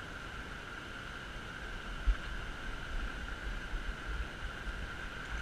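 Steady rush of a shallow river running over stones. About two seconds in, low rumbling on the microphone starts and carries on, with one sharp bump.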